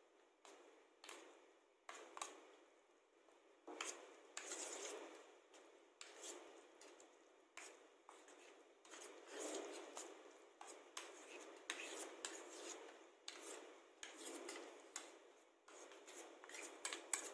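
Quiet, irregular scraping, rubbing and light clicks of a utensil and container being handled as yogurt is added to a chicken marinade.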